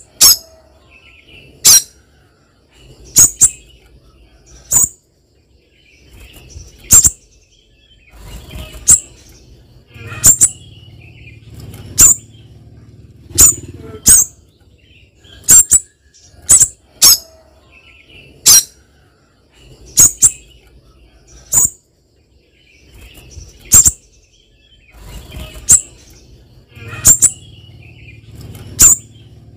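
Spiderhunter giving repeated sharp, high-pitched single call notes, each very brief, about one every second or two and sometimes in quick pairs.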